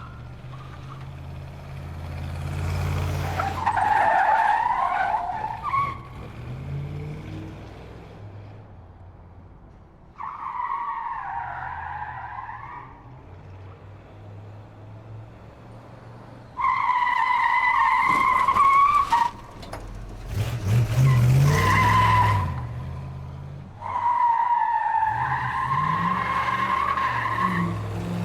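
A car skidding repeatedly, its tyres squealing in five separate long squeals of two to four seconds each over the low sound of the engine running. The squeal that starts suddenly a little past halfway is the loudest.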